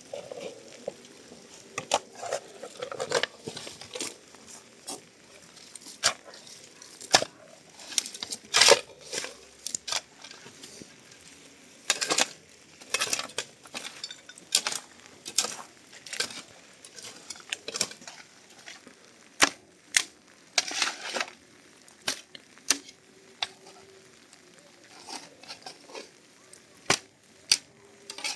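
Kitchen work sounds: irregular clinks, taps and scrapes of utensils against dishes and pots, a few sharp knocks louder than the rest.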